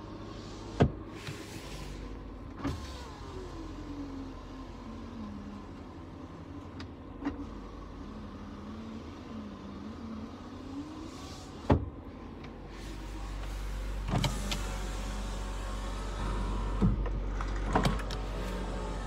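Cabin sound of a Nissan Sunny Traditional on the move: a steady low engine hum, with a tone that sags and then climbs again, and a few sharp clicks or knocks. The low rumble grows louder about two-thirds of the way through.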